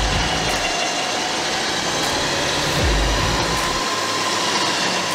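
Electric Carbon winch on a Mitsubishi Triton's front bar hauling in its synthetic rope under load, a steady motor-and-gear whine that rises slightly in pitch through the second half, over the running engine as the vehicle is pulled out of mud. Deep low thumps come about every three seconds.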